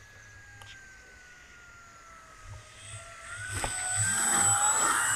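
Electric motor and propeller of a Dynam Primo RC plane: a faint whine that sinks slowly in pitch, then grows loud about three and a half seconds in as the plane comes close across the grass. Near the end its pitch rises sharply as the motor speeds up.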